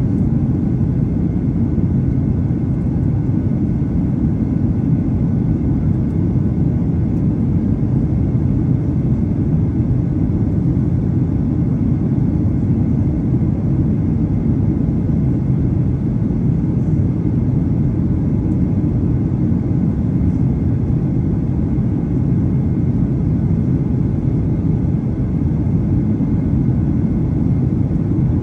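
Steady low roar inside an airliner's cabin on approach to land: engine and airflow noise heard from a window seat, even throughout with a faint steady high tone above it.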